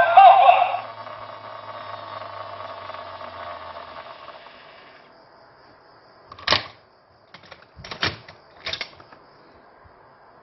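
The Auldey DX Armor Hero Tornado belt toy's electronic voice calls "Tornado Power!" over its synthesized music through a small toy speaker, then a fading electronic sound effect runs for a few seconds and dies away. Later come three sharp plastic clicks as hands handle the belt and its summon key.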